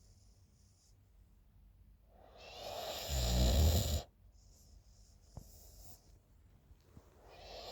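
A sleeping woman snoring, one snore about every five seconds: a low rattling buzz that swells from about two seconds in and stops abruptly at about four, then a soft hiss of breath out. The next snore begins building near the end.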